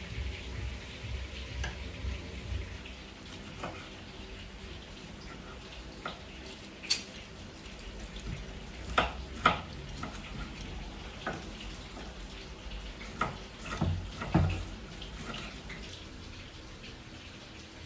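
Dishes and utensils clinking and knocking as they are handled, a scattered series of sharp clinks that is loudest about halfway through and again about three-quarters in, over a low steady hum.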